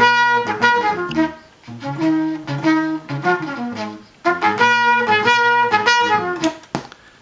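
Music playing through a Marantz CD-63 Mk2 KI CD player, stopping near the end, followed by a single sharp pop from the player's output. The pop is the sign of a muting-circuit fault, which the owner suspects comes from a failing 2SC2878 muting transistor.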